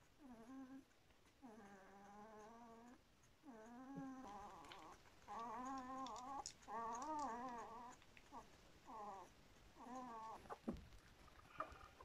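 American Collie puppies whining and mewling: a string of about nine drawn-out whimpers, each up to a second or so long and wavering in pitch, with a few faint clicks near the end.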